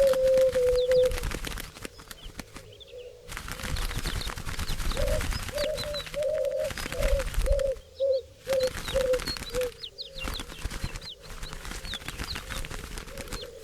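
Doves cooing: a held low note that ends about a second in, then a run of short coos from about five seconds in that shorten as they go. Small birds chirp high above throughout, with wing flapping.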